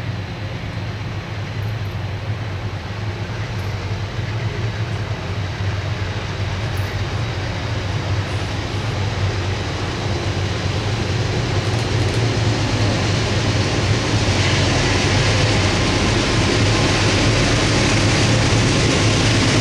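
Train approaching, its low steady drone and rushing rail noise growing steadily louder as it nears.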